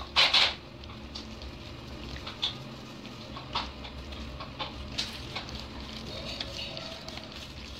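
Plastic spoon scraping and tapping in a plastic mesh sieve as fine powder is pushed through, in short scattered scrapes with a louder one near the start.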